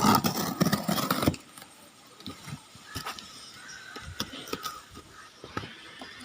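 Cardboard packaging of a Nerf blaster box being handled and opened: a loud rough rustling that stops abruptly about a second and a half in, then scattered light clicks and taps.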